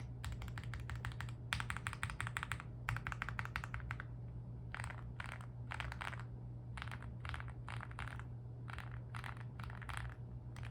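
Stabilized keys on a Meletrix Zoom75 mechanical keyboard with lubed and tuned Wuque stabilizers and Everglide Aquaking switches being pressed. The first four seconds hold three fast runs of rapid presses. After that come separate single presses, about two a second.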